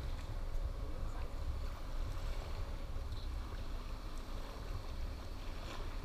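Wind rumbling on the microphone, with the faint steady drone of a distant motorboat engine.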